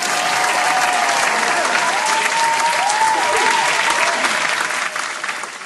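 Sound-effect crowd applause with a few cheers, cutting in abruptly and fading out near the end.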